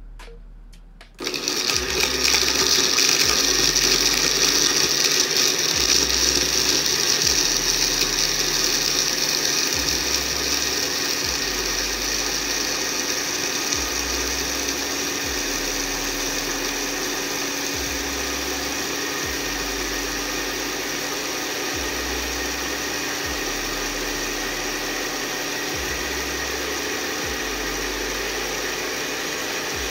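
Countertop blender starting about a second in and running steadily at medium speed, blending ice cubes with milk and cocoa into a milkshake. It is a little louder for the first several seconds while the ice is crushed, then settles to a steady whir.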